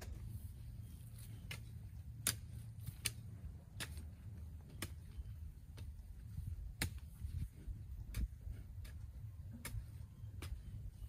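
Irregular sharp taps or knocks, about one or two a second, over a low steady rumble.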